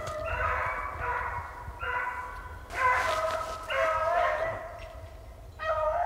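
Beagles baying on the track of a snowshoe hare: a run of long, drawn-out cries, one after another with short gaps, as the pack drives the hare in a circle.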